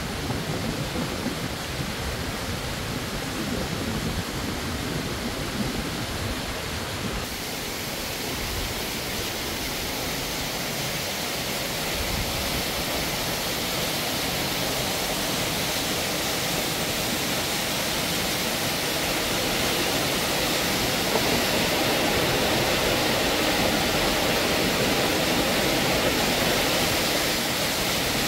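Small waterfall pouring over boulders: a steady rush of falling water, which becomes brighter and louder from about seven seconds in.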